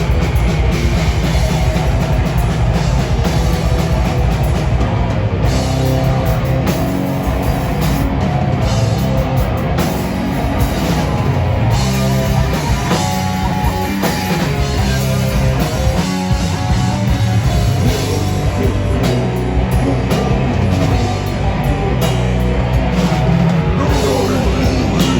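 A rock band playing live and loud, with a drum kit and guitars.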